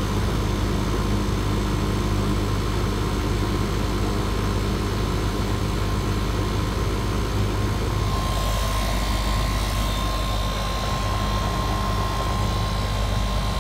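R-410A air-conditioning condensing unit running: the compressor and condenser fan make a steady, even hum while the system is being charged.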